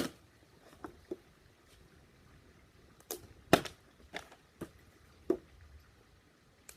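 Plastic water bottle being flipped and knocking down on a hard surface: a sharp knock at the start, another loud one about three and a half seconds in, and several lighter knocks and clatters between and after.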